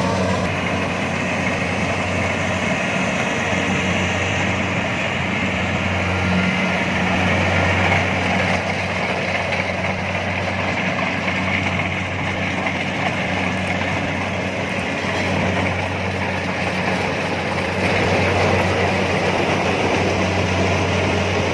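Kubota DC-70 rice combine harvester's diesel engine running steadily, with a constant low hum under a wide mechanical din.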